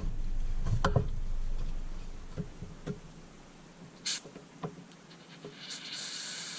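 An aerosol spray can sprayed into a snowblower carburetor's jet passage. A short hiss comes about four seconds in, then a longer, steady hiss near the end, after a couple of handling clicks at the start.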